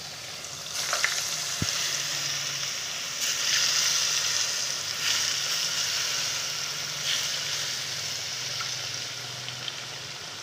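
Tempe deep-frying in a pan of hot oil: a steady sizzle with scattered pops. It grows louder about a second in and eases a little toward the end.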